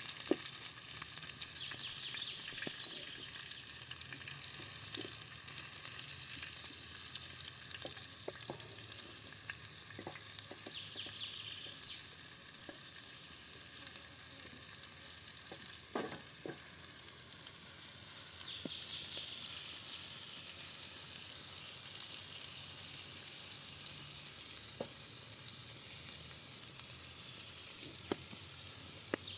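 Vegetables sizzling and frying in a pan over a campfire, a steady hiss with scattered clicks and knocks. A songbird sings a short, quick phrase three times, at the start, in the middle and near the end.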